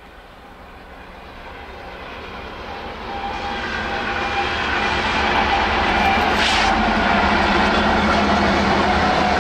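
Diesel locomotives of a BNSF intermodal freight train approaching and passing. Their engine drone grows steadily louder for about six seconds, then holds at its loudest. A short high-pitched noise comes about six and a half seconds in.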